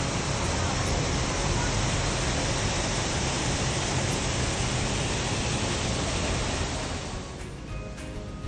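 Steady, loud rushing noise without any clear tone, fading away about seven seconds in as music with clear notes comes in.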